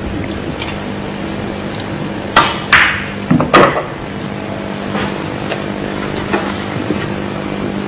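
Pool cue striking the cue ball and the balls clacking together: four sharp clicks within about a second and a quarter, starting about two and a half seconds in, with a few fainter clicks after. A steady hum of the hall runs underneath.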